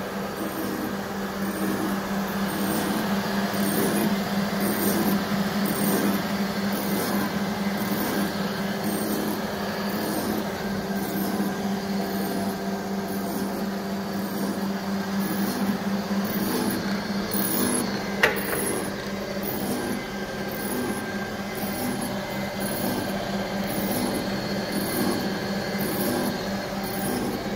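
3E659 drill-bit grinding machine running: a steady electric-motor hum with a regular pulsing about one and a half times a second from its moving workhead. One sharp click about eighteen seconds in.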